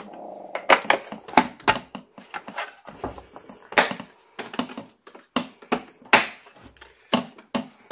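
Irregular plastic clicks and knocks, with a little scraping, as the lid of an Aquael Ultramax 2000 canister filter is pressed down onto the canister and its latch clips are worked into place.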